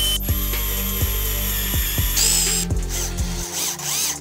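Small DC-motor drill running with a high whine; its pitch bends as the speed changes about two seconds in. Background music with a steady beat plays throughout.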